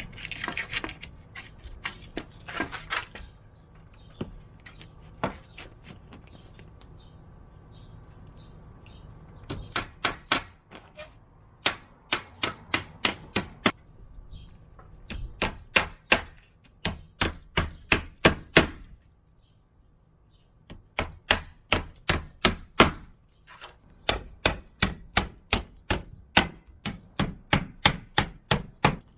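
A hammer driving nails into wooden boards: quick, evenly spaced blows, about four or five a second, in runs of a few seconds with short pauses between, after a few scattered knocks.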